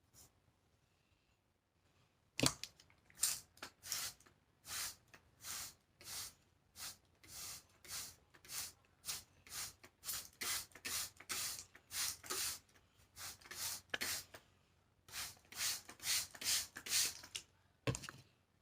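Trigger spray bottle spritzing over and over, about two quick sprays a second, starting a couple of seconds in and stopping near the end.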